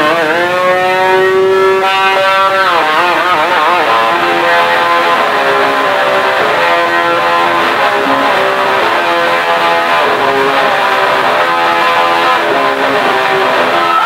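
Distorted electric guitar playing loud, with long held notes that wobble widely in pitch in the first few seconds, then a run of shorter held notes.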